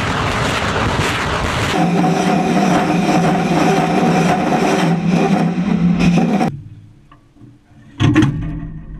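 Multiple rocket launcher firing a salvo: a continuous loud roar of rockets leaving the tubes, carrying a steady humming tone, which cuts off abruptly about six and a half seconds in. Near the end comes a sudden loud bang.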